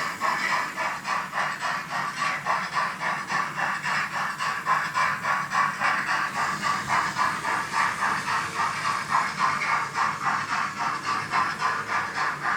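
Digital sound decoder of an H0 model steam locomotive playing steady rhythmic steam chuffing with hiss, about three to four beats a second, from the model's small speaker.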